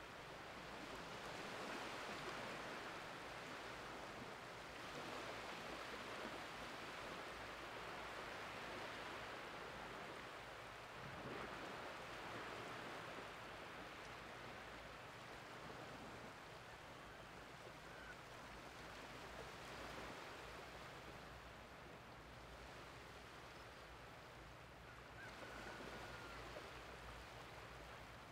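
Small waves washing gently onto a flat sandy beach as the tide comes in, a soft hiss of water that swells and eases every few seconds.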